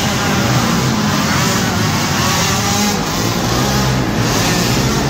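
Several youth racing quads (ATVs) revving on a dirt track, their engine notes rising and falling as the riders accelerate and back off, steady and loud throughout.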